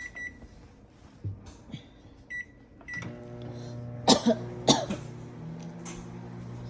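Microwave oven keypad beeping three short times as it is switched on to reheat rice, then the oven starting and running with a steady hum. Two sharp knocks come about four seconds in.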